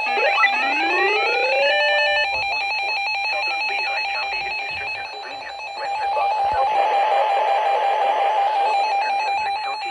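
A 12-250 weather alert radio sounding its alarm as it activates for a flash flood warning. It gives a rising whoop that climbs and levels off over about two seconds near the start. A steady high tone then carries on over a noisy, warbling alarm sound.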